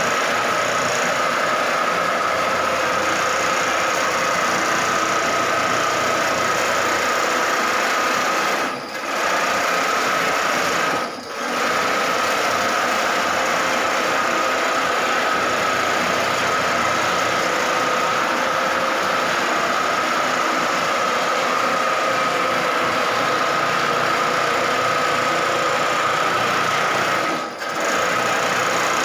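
Hongcheng computer-programmed single-needle quilting machine running, its needle head stitching across a quilt with a steady machine noise and a steady high whine. The sound dips briefly three times, about nine, eleven and twenty-seven seconds in.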